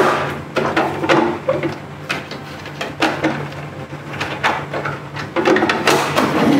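Hard plastic body of a new evaporative air cooler being handled: a string of short knocks, clicks and scrapes as it is gripped and moved about.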